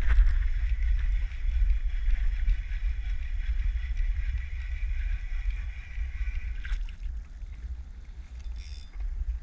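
Low wind rumble on the microphone over the steady whir of a fishing reel being cranked as a small fish is reeled in; the whir stops about seven seconds in, followed by a short hiss near the end.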